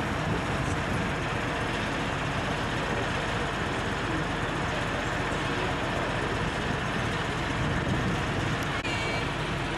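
Steady noise of a moving road vehicle, an even rumble and hiss with no breaks.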